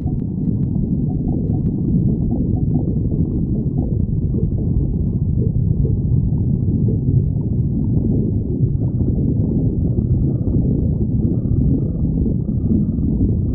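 A stomach growling with a continuous low rumble, with a few faint, brief higher squeaks in the second half.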